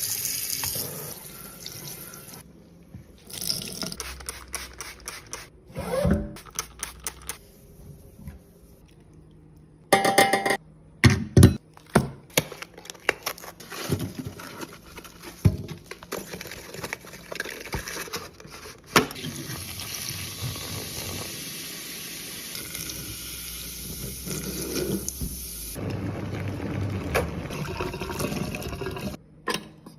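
A run of short kitchen handling sounds from fridge cleaning and restocking: sharp clicks, knocks and clatters of containers and items being handled, with a steady rushing like running water through much of the second half.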